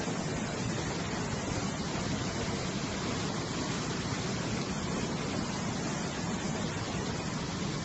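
Muddy floodwater rushing steadily over rocks in a swollen stream: a dense, unbroken roar of churning water.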